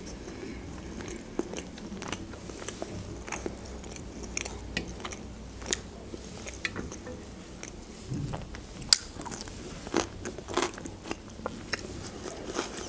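Close-miked mouth sounds of a person chewing grilled chicken: soft, wet chewing with scattered clicks and lip smacks, the sharpest about nine seconds in.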